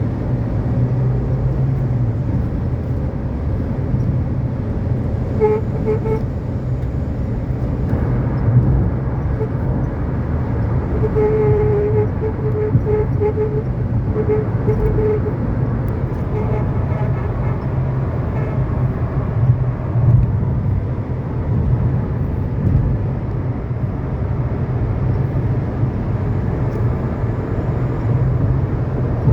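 Nissan Kicks driving at high speed with a steady low drone of engine and road noise, the noise the car makes at speed. A short pitched tone comes through about six seconds in, then again in a string of short toots from about eleven to fifteen seconds in.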